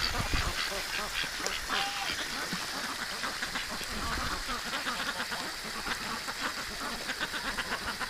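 A flock of domestic ducks quacking and chattering in a dense run of short calls, with a goose honking now and then.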